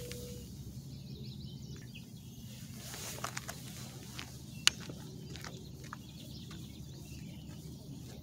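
Outdoor ambience: a steady low hum with faint bird chirps, broken by a few sharp clicks about three seconds and almost five seconds in.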